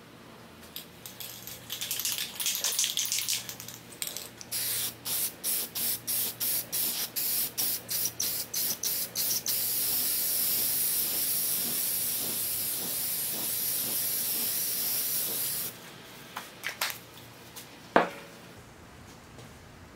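Aerosol can of clear acrylic enamel: a rattle as it is shaken, then a run of short hissing spray bursts about two a second, then one long steady spray that cuts off suddenly, as the decal sheet gets a clear coat. A few clicks and a sharp knock near the end as the can is set down.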